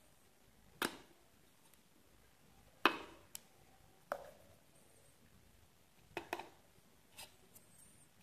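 Scattered sharp plastic knocks and taps, the loudest about three seconds in: a plastic scoop digging protein powder out of a plastic tub and knocking against the rims of the tub and a plastic shaker bottle.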